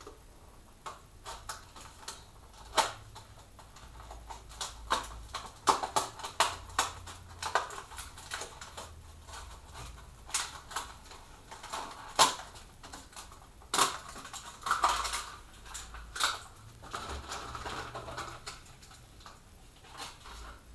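An HO slot car being unboxed: irregular sharp clicks and snaps of its packaging being handled and opened, with short stretches of rustling.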